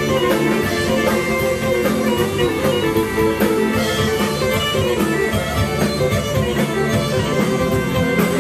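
Lively folk dance music for horon, a fast, busy melody over a steady drum beat.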